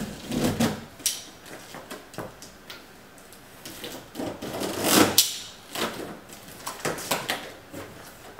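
A large shipping case being opened by hand: a string of clicks, knocks and scrapes as the lid is worked loose and lifted, the loudest about five seconds in.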